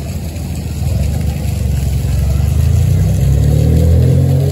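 Low rumble of a motor vehicle engine running close by, growing louder over the first few seconds.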